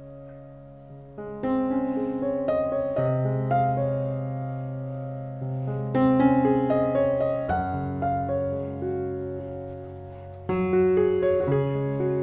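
Slow background piano music, with new chords struck every few seconds.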